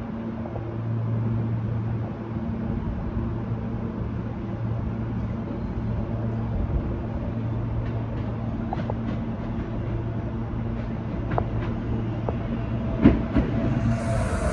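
New York City Subway L train running slowly at the terminal: a steady electric hum over a rumble, with sharp clicks of wheels over rail joints that come more often and louder toward the end. A hiss comes in just before the end.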